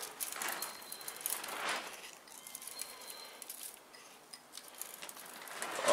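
Sea salt sprinkled by hand from a jar onto diced bell peppers in a stainless steel tray: faint, scattered ticks and a light hiss of grains landing.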